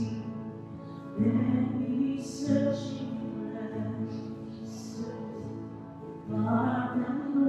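Slow live worship song: a woman singing, accompanied by a Roland keyboard and an acoustic guitar. Held chords change about every second and a quarter.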